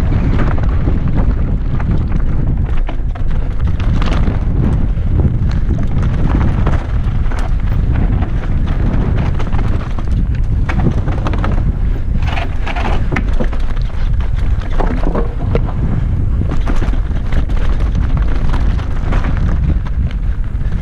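Wind buffeting the microphone at speed, with the continuous rattle and crunch of a mountain bike's tyres and frame over loose rocks and gravel.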